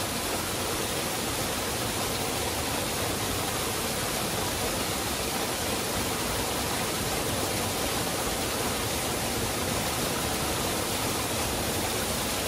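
Small waterfall pouring steadily into a rocky pool, an even rushing of water.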